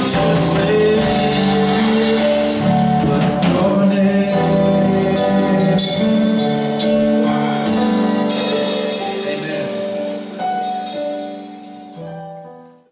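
Gospel worship music on an electronic keyboard, with a man singing along. The music fades out near the end.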